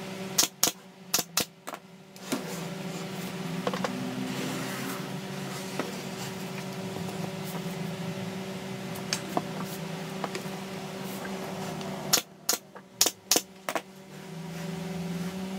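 Nail gun firing two quick series of about six sharp shots, the first about half a second in and the second about twelve seconds in, driving nails through a pine rail into a wooden frame, over a steady low hum.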